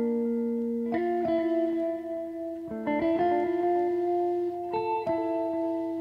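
Instrumental background music on plucked strings: a new chord or note is struck every one to two seconds and left ringing.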